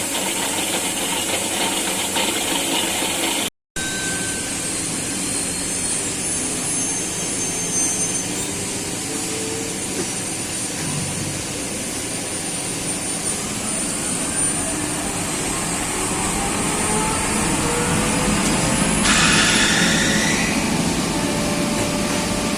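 Komori web offset printing press running, a dense mechanical clatter and hum whose pitch climbs slowly as the press picks up speed after start-up. It drops out briefly once, and near the end a short higher tone sounds over the machine noise.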